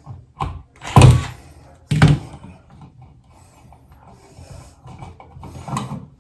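Two sharp knocks about a second apart, with lighter clicks and clatter of hand tools working on a wall switch.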